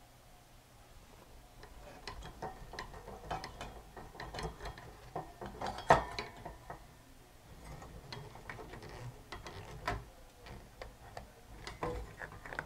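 Screwdriver tightening the mounting screws of power transistors on an AV receiver's heatsink: scattered small clicks and scrapes of the blade turning in the screw heads, the sharpest about six seconds in.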